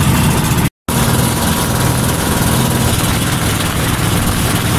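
Motorized outrigger boat's (bangka's) engine running steadily under way, with wind and water rush over it; the sound cuts out briefly just under a second in.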